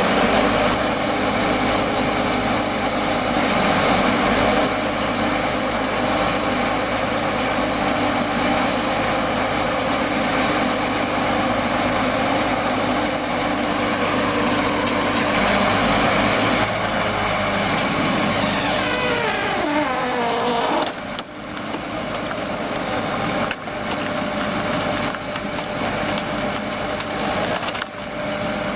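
Wood chipper running and chipping wood, with a steady machine drone and splintering, crushing wood noise. About two-thirds of the way in, the machine's pitch sags under load. Then the sound changes abruptly.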